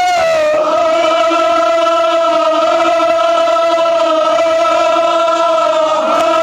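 A voice chanting a Kashmiri marsiya lament holds one long, steady note, after a small drop in pitch just at the start; the pitch shifts again near the end.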